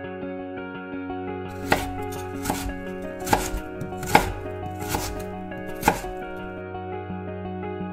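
Knife chopping boneless chicken on a plastic cutting board: six sharp knocks, about one every 0.8 seconds, starting about a second and a half in, over steady background music.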